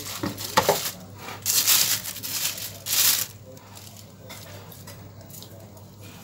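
Handling noises as a tilapia is moved and laid on a wooden chopping block by gloved hands: short rustling and scraping sounds, the loudest about a second and a half in and again about three seconds in, then quieter, over a steady low hum.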